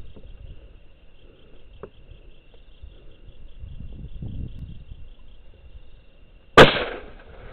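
A single rifle shot near the end, sharp and loud with a brief tail. Insects chirp steadily in a fast, high, pulsing trill throughout.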